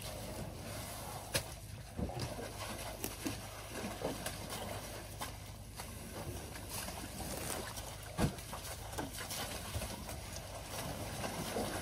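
Elephants moving about in a wallow of wet mud: irregular sloshing and squelching of mud and water, with a few sharper knocks, the strongest about eight seconds in.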